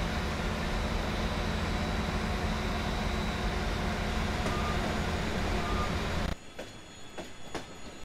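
Station platform ambience dominated by the steady low rumble of a regional diesel multiple unit's engine, with two short beeps near the middle. The sound cuts off abruptly about six seconds in, leaving a much quieter stretch with a few clicks.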